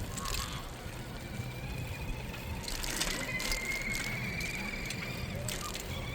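Bicycle riding along a path: a steady low rumble of tyres and wind, with a few short clicks and rattles from the bike. A thin high tone holds for a few seconds in the middle.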